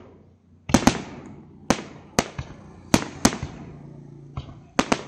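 Fireworks bursting: a string of sharp bangs, several coming in quick pairs, each trailing off in a rolling echo.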